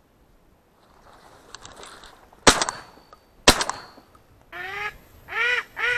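Two 12-gauge shotgun shots about a second apart, from an Armsan 612 semi-automatic, followed by a duck quacking repeatedly, about two to three quacks a second.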